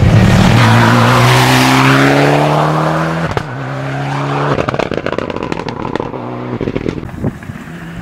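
Mitsubishi Lancer rally car accelerating hard: the engine pitch climbs, drops at a quick upshift about three seconds in, and climbs again. The driver then lifts off, and the car pops and crackles on the overrun as it pulls away.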